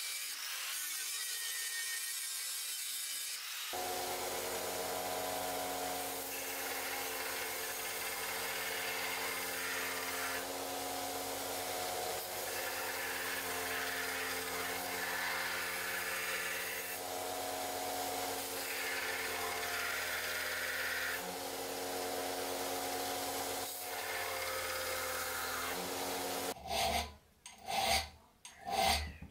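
An angle grinder with a flap disc grinds steel for a few seconds. Then a belt grinder runs with a steady motor hum, and the blade is ground against the belt in repeated passes, each a few seconds of rasping grind. Near the end a round file is drawn across the steel spine of the blade by hand, in short rasping strokes about two a second.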